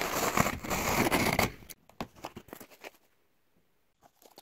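Scissors slitting the packing tape along a cardboard box's seam: a continuous tearing run of about a second and a half. It is followed by a few light knocks and rustles of the cardboard flaps being handled.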